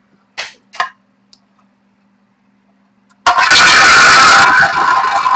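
Two short knocks, then a wheel spun hard about three seconds in: a loud, rattling whir.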